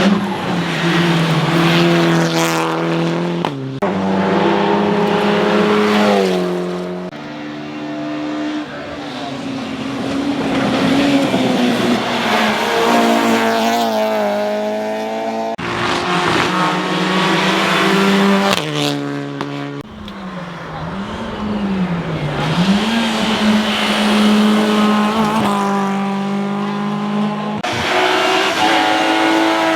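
Hillclimb race car engines at high revs, accelerating hard through the gears: the pitch climbs and drops back at each shift. Several separate cars follow one another in quick cuts.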